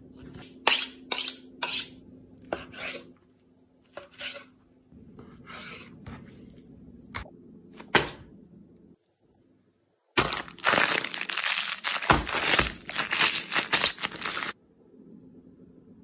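Kitchen food-prep handling noises: several sharp knocks in the first couple of seconds, then, from about ten seconds in, about four seconds of loud crinkling and tearing, as a plastic food packet is handled and opened.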